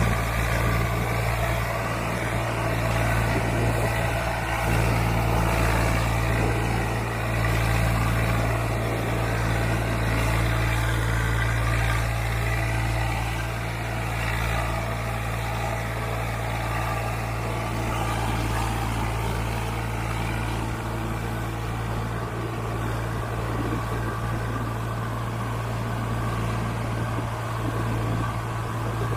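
Tractor's diesel engine running steadily as it pulls a loaded trolley along a dirt track.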